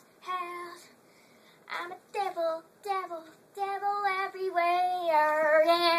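A young girl singing in short phrases, ending on a long held note near the end.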